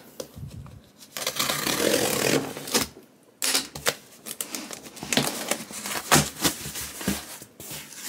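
Box cutter slicing through plastic packing tape on a cardboard box, then the tape tearing and the cardboard flaps being pulled open, in a run of irregular scrapes, rips and clicks.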